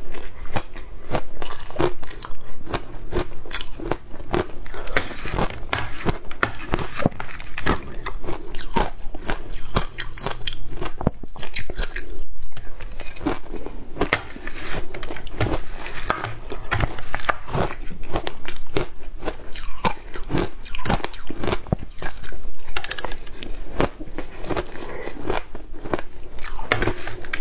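Ice being bitten and chewed, close up: dense, sharp crunches many times a second, with a short pause about twelve seconds in.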